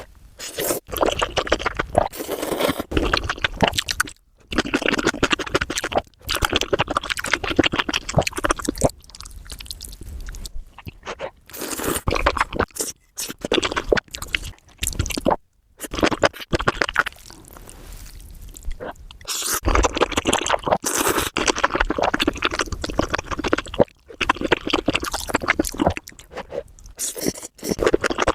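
Close-miked eating sounds: crunchy chewing and mouth noises with scraping, in stretches broken by sudden breaks.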